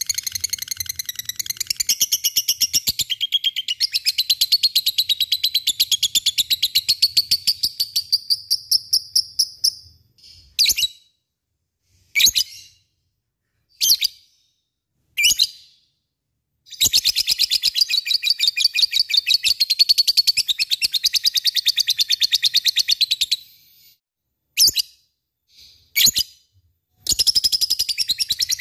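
Lutino rosy-faced lovebird giving its long, rapid, high chattering trill (the 'ngekek' prized by lovebird keepers). The first trill lasts about ten seconds and is followed by a few short sharp single calls. A second trill of about seven seconds comes next, then two more short calls, and a third trill begins near the end.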